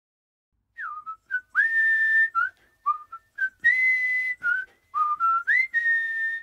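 A person whistling a short solo tune, starting about a second in. It mixes quick short notes with a few long held notes, several of which slide up or down in pitch, and there is breath hiss on the long notes.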